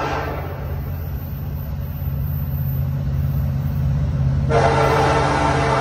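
Approaching Norfolk Southern diesel freight train: a steady low locomotive rumble, with the air horn cutting off just after the start and sounding again, loud and steady, about four and a half seconds in.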